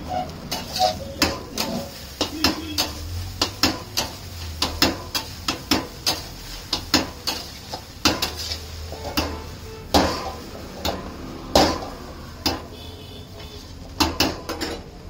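Flat metal spatula striking and scraping a steel wok while stir-frying egg rice: irregular sharp clanks, one or two a second, over a low steady hum.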